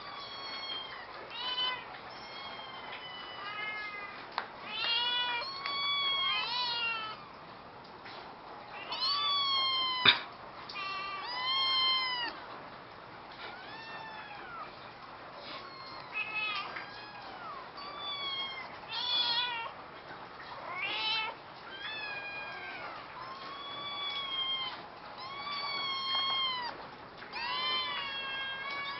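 Cat meowing over and over, a string of short calls that rise and then fall in pitch, one every second or two. A single sharp click sounds about ten seconds in.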